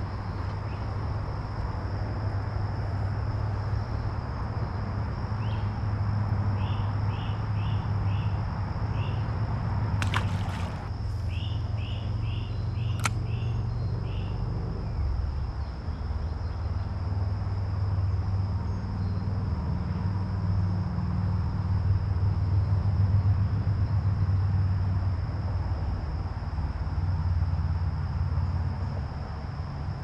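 Steady high-pitched insect drone over a constant low rumble, with two short runs of quick chirps and two sharp clicks about a third of the way in.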